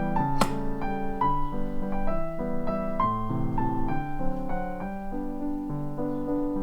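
Gentle piano background music, a melody of single notes over lower held notes, with one sharp click about half a second in.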